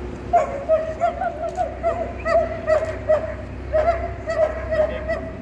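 German shepherd giving rapid, repeated high yips and whining calls, about three a second, with a brief gap around three and a half seconds in.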